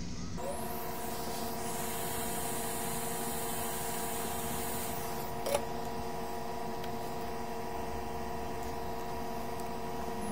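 Hot air rework station blowing steadily while desoldering surface-mount diodes from a circuit board: a fan hum with a hiss of air, switched on about half a second in and off right at the end. There is one click about halfway through.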